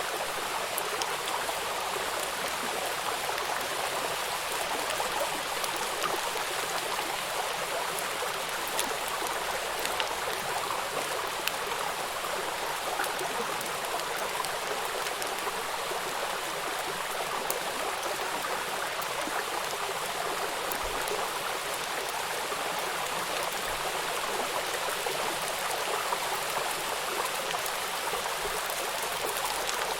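Steady rain falling, a dense even hiss with scattered small drop ticks.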